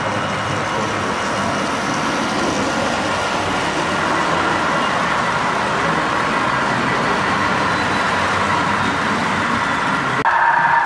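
Model freight train rolling past, the wheels of its boxcars running on the rails in a steady, noisy rumble. Near the end the sound cuts abruptly to a louder, steadier running sound.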